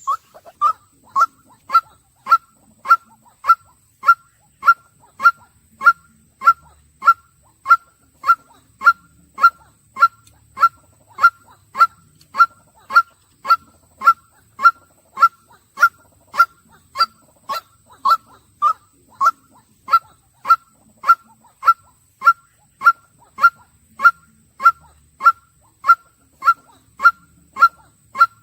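White-breasted waterhen calling: a long, monotonous series of short, identical notes repeated steadily at nearly two a second.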